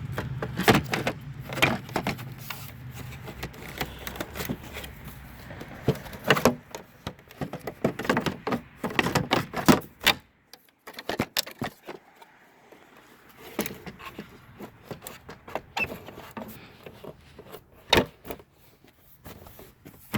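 Irregular plastic clicks and knocks as a car's tail light assembly is handled and pushed into place against the body, lining up its locating ball. A low steady hum runs under the first few seconds, then fades out.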